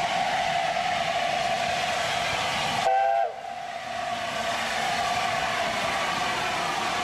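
LNER A4 Pacific steam locomotive running at speed, a steady rushing noise, with a short multi-tone chime whistle blast about three seconds in that cuts off suddenly. After the whistle the running noise dips, then builds back up.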